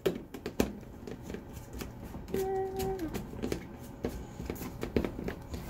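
Scattered plastic clicks and rattles of a measuring cap being handled and put back on a plastic liquid-detergent bottle.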